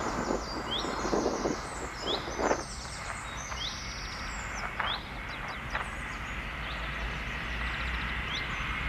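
Small birds chirping and trilling, with short chirps about every second or two over a steady background hum. Near the end the whine of a jet airliner on landing approach begins to grow.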